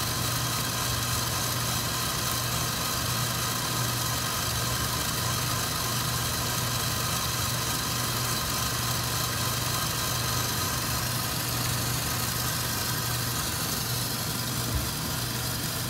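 Commercial 8-quart stand mixer running steadily at high speed, its whisk attachment whipping egg whites toward soft peaks: an even motor whir.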